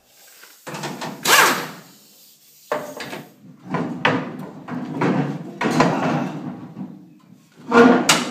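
Metal plate scraping and rubbing against the sheet-metal side of a swather header's auger housing as it is worked loose by hand, in about six irregular strokes with a louder clank near the end.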